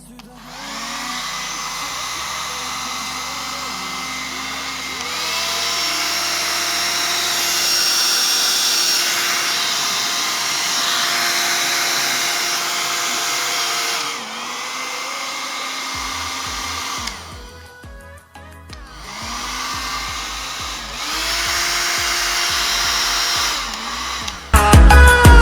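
Morphy Richards 1000-watt two-speed travel hair dryer blowing, stepping up to its higher speed about five seconds in and back down near fourteen seconds. It is switched off for a moment after that, comes back on, and steps up again before cutting out. Loud music comes in at the very end.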